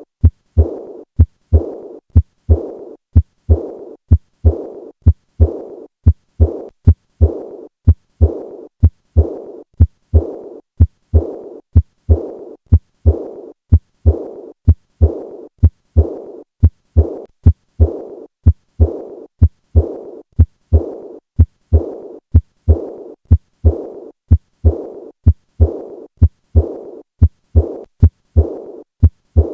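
Heart sounds of acute aortic regurgitation heard with a stethoscope at the fourth left intercostal space: a regular beat a little over once a second. Each beat is a sharp low thud followed by a murmur that fades away, the murmur of the leaking aortic valve.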